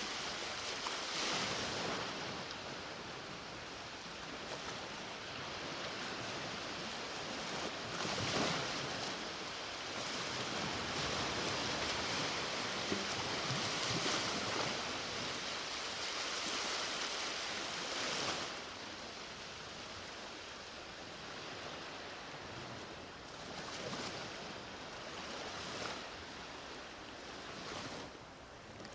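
Sea waves breaking and washing up the beach, a steady rush that swells and eases, with a louder stretch from about eight to eighteen seconds in.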